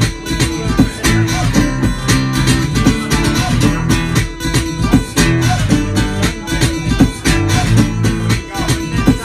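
Acoustic guitar strummed in a steady rhythm, an instrumental passage of a live pop song with sustained low notes under the strums.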